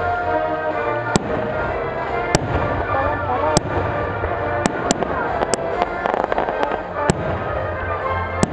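Aerial firework shells bursting in sharp bangs, about eight of them roughly a second apart, with a spell of crackling just past the middle, over music playing throughout.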